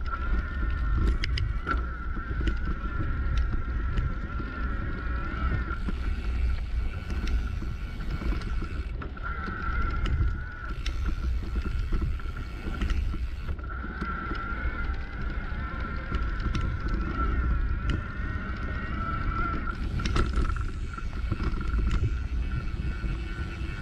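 A bike or motorcycle riding over a bumpy dirt track, with a steady high whine, a low wind rumble on the microphone and scattered knocks from the rough ground.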